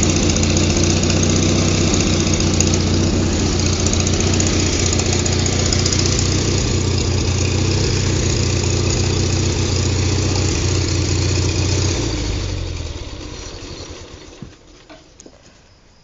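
Engine of a hydraulic tree-lifting machine running steadily at idle, then shutting off about twelve seconds in and dying away over a couple of seconds.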